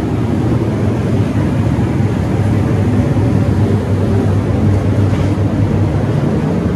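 Steady, loud low drone of large ventilation fans running.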